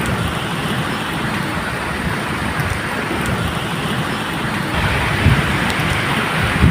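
Steady medium rain falling, with a low rumble of distant thunder swelling about five seconds in.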